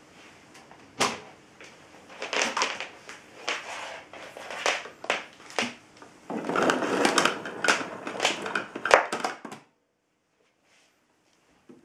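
Irregular clicks, knocks and rustling of objects being handled, busiest near the middle, then cutting off to silence shortly before the end.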